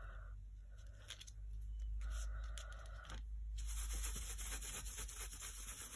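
Dry paintbrush scrubbing and dabbing acrylic paint through a plastic stencil onto glossy paper, with the stencil and paper being handled: scratchy rubbing and light taps, busier in the second half.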